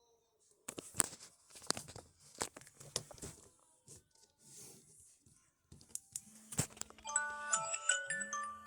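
Clicks and rustles of a Samsung Galaxy A15 smartphone being handled, then the phone's alarm going off about seven seconds in: a chiming, glockenspiel-like melody of quick bright notes, with the vibration motor buzzing underneath in two long pulses.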